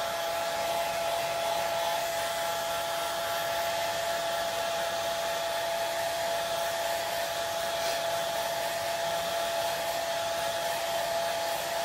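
Handheld blow dryer running steadily to dry freshly applied chalk paste: an even rush of air with a constant whine over it.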